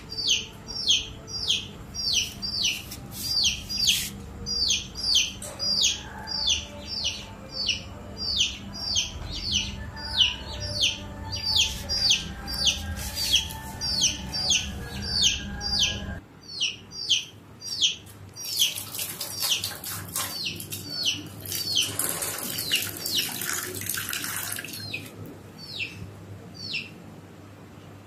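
A small caged bird chirping over and over, short falling chirps about two to three a second. A low steady hum stops about halfway through, and a hissing noise comes in for several seconds later on.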